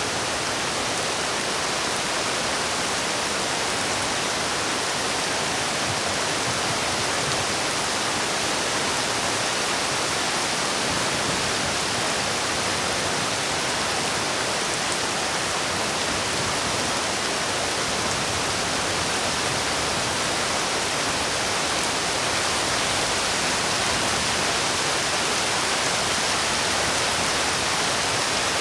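Steady, heavy rain: a dense, unbroken hiss of rainfall with no distinct drops or other events.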